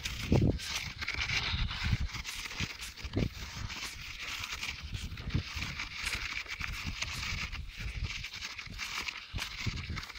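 Footsteps in sandals on a sandy dirt track at a walking pace, with scattered soft thumps and a steady hiss behind them.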